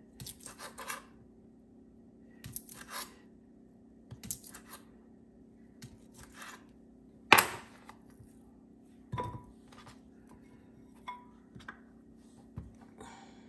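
Kitchen knocks and clinks: a knife cutting sausage on a board and pieces being handled among dishes, in irregular short strokes with a few ringing clinks and one louder knock about seven seconds in. A faint steady hum runs underneath.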